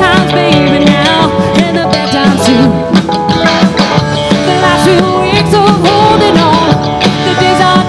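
Live country rock band: a woman singing lead over electric guitar and drums.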